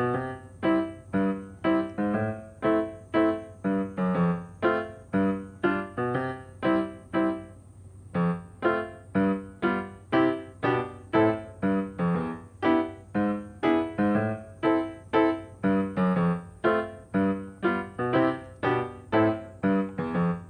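Background music: a piano or electric-piano tune of short, evenly paced notes, about two a second, with a brief pause near the middle.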